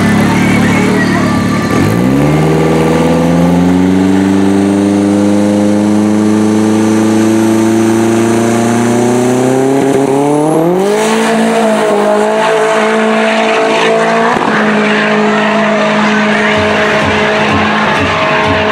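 Turbocharged engine of a rear-wheel-drive Dodge Neon SRT drag car holding and building revs at the start line, its pitch climbing slowly with a faint rising turbo whistle, then a sudden sharp jump in revs as it launches about ten seconds in.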